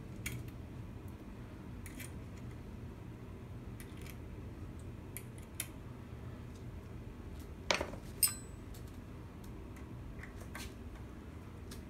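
Small metal clicks and clinks of steel screws being handled and set into a steel Sandvik Coromant Capto clamping unit by hand. Two louder, ringing metallic clinks come about two-thirds of the way through.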